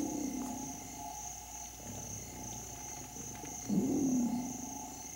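Steady high chirring of insects, with a low lion growl carrying over at the start and another about four seconds in.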